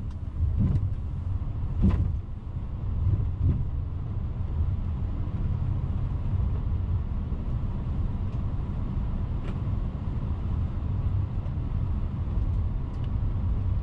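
Steady low rumble of an Airbus A380 taxiing, heard on the flight deck, with a few brief clicks in the first two seconds.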